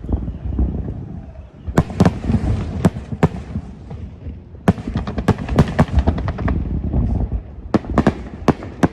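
Aerial fireworks going off: an irregular run of sharp bangs over a continuous low rumble of distant bursts.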